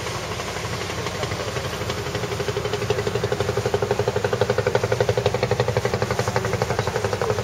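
Boat engine running with a fast, even chugging pulse that grows louder about two seconds in.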